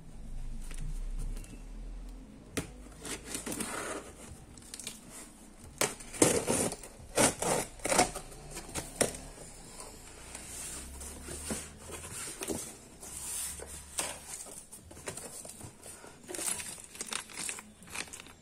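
Packing tape being torn off a cardboard box and the box flaps pulled open, in a run of sharp irregular rips that are loudest a third of the way in, followed by cardboard and a plastic bag rustling and crinkling as the contents are handled.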